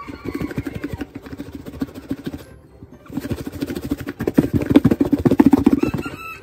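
Shrimp and tempura powder being shaken in a covered plastic food container, a fast rattling and thumping of the contents against the walls and lid. It comes in two spells with a short pause about two and a half seconds in, and is loudest in the second spell.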